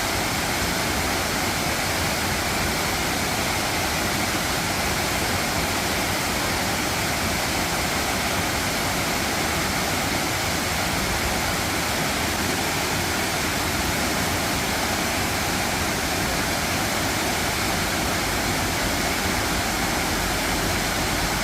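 Dry Falls, a waterfall on the Cullasaja River, rushing steadily: a dense, even hiss of falling water that holds the same level throughout.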